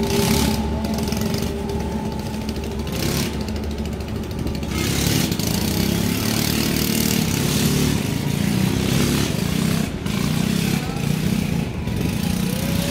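Steady outdoor street noise, likely traffic, with a faint murmur of voices.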